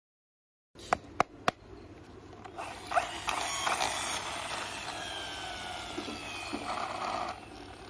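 A few sharp clicks of hard plastic being handled, then the toy motorbike's wheel and gears spinning with a mechanical whirr for about five seconds, sliding gradually down in pitch, cut off suddenly near the end.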